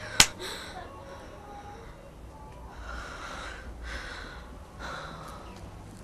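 A sharp click just after the start, then three heavy breaths about a second apart from a young woman crying.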